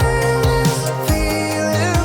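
Background music: an upbeat pop/soul-style track with a sung or lead melody over a steady beat.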